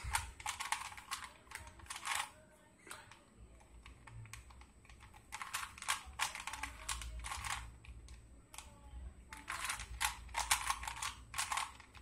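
Plastic 3x3 Rubik's cube turned rapidly by hand: quick runs of clicking and clacking as the layers snap round, in three bursts separated by short pauses.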